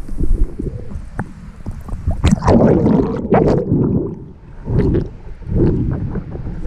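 Muffled water sound picked up by a camera under the surface of a pond: a low rumble with bursts of bubbling and gurgling, loudest between about two and four seconds in and again briefly twice near the end.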